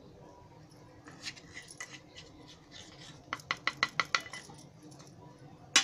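Light taps and clinks of steel kitchenware while cornflour is added to a mixing bowl: scattered faint clicks, then a quick run of about eight small taps a little past the middle, and a louder clink at the end.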